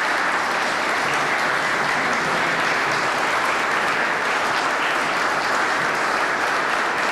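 An audience applauding steadily after a speech, a dense even clapping from a roomful of people.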